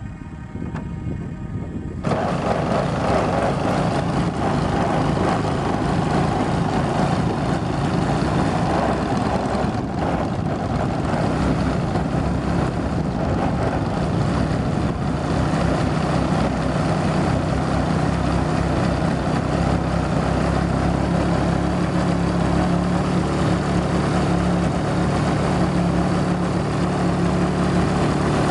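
ZDZ 180 two-stroke petrol engine of a large radio-control Extra 260 model plane running steadily on the ground. It comes up sharply about two seconds in, then holds an even hum.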